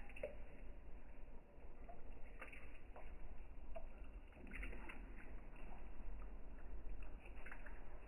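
Water sloshing and splashing, with small irregular splashes and clicks over a steady low hum.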